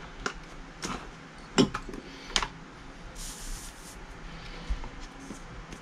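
Small airsoft pistol parts being set down on a work surface: a few separate light clicks and taps, then a short rustle about three seconds in.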